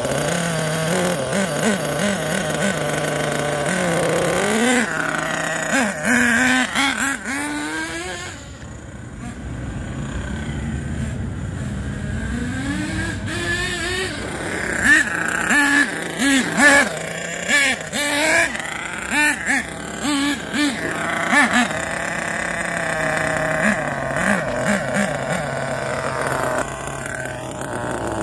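Thunder Tiger EB4 S3 buggy's .28 nitro engine running on 16% nitro fuel: idling steadily at first, then revving with rising and falling pitch. It fades for a couple of seconds as the car drives off, then comes back with repeated short bursts of throttle.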